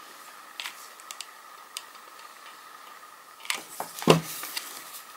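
Paper and crafting tools being handled on a table while a paper pocket is glued shut: scattered light ticks and clicks, then paper rustling with a sharp tap about four seconds in.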